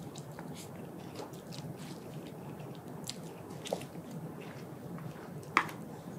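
A person chewing a mouthful of yakisoba noodles, with many small wet clicks and smacks of the mouth, and one sharper click about five and a half seconds in.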